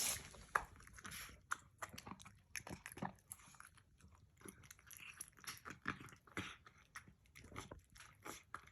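A cat eating dry kibble soaked in chunky gravy: faint, irregular crunching and chewing.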